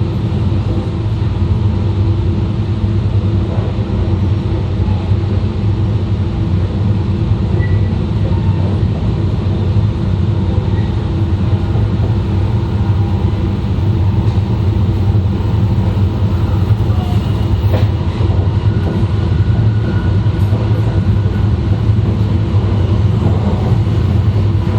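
Running noise of an E2 series Shinkansen (set N13, Mitsubishi IGBT inverters), heard from the vestibule deck: a steady rumble of wheels and running gear with a few constant tones, the train moving at an even speed.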